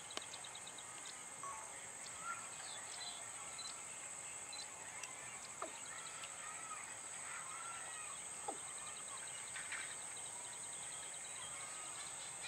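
Steady, high-pitched insect drone, with scattered short bird chirps and calls over it.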